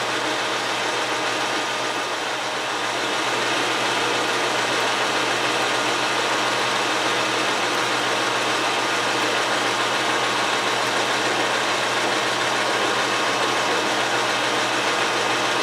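Metal lathe running steadily, its spinning bar being drilled through by a 3/8-inch twist drill held in a tool-post drill chuck and fed in from the carriage.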